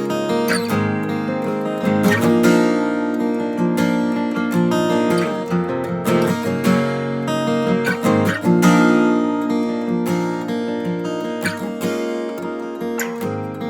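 Steel-string acoustic guitar, a 2017 Martin D-28 with 13-gauge strings tuned down a half step to E flat, strummed in chords with ringing sustain, through a phone's microphone.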